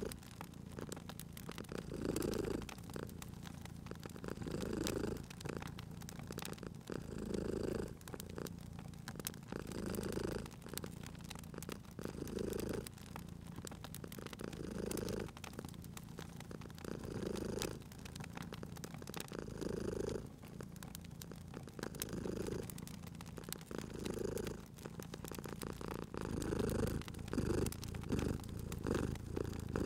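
Domestic cat purring, the purr swelling and fading in a slow rhythm about every two and a half seconds, with the small pops and crackles of a wood fire throughout.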